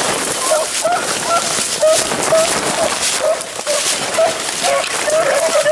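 Beagles baying on a rabbit's trail, a run of short, pitched bawls coming about two a second, the sound of hounds giving voice while running a rabbit. Brush rustles and scrapes close by throughout.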